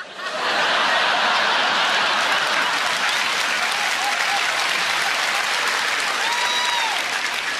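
Theatre audience applauding, starting suddenly and holding steady, easing off a little near the end. A single short high tone rises and falls through the clapping about six seconds in.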